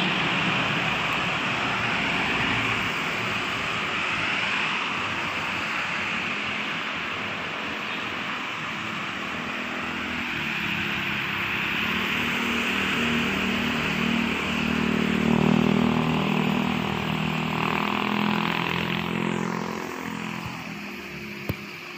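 Road traffic passing, a steady rush of vehicles. About halfway through, one vehicle's engine hum swells and then fades away near the end. A single sharp click comes just before the end.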